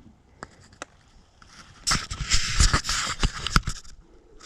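Close scraping and rustling with many sharp clicks, loudest from about two to four seconds in, after a couple of isolated clicks.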